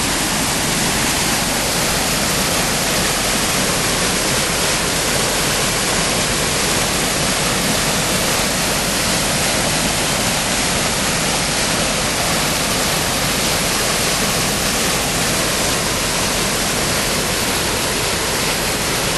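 Floodwater rushing fast out of a culvert, a loud, steady roar of churning water.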